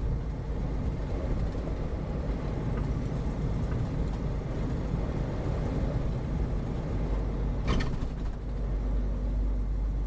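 Steady road and engine rumble inside a moving vehicle driving on a snowy road, with one brief sharp click about three-quarters of the way through.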